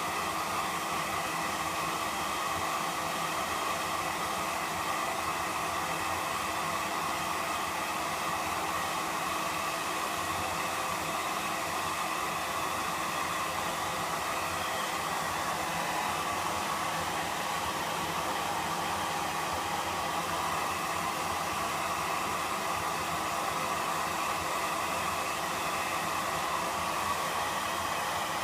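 Hair dryer running steadily, an even rush of blown air with a faint constant hum and no change in speed.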